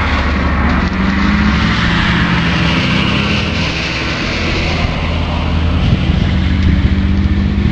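Steady engine and road noise heard from inside a moving car: a low, even rumble with a hiss of tyres over it.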